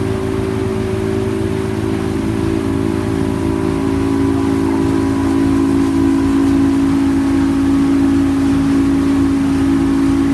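Motorboat engine running steadily while the boat is underway at speed, over a steady rush of wind and water noise. It grows a little louder about halfway through.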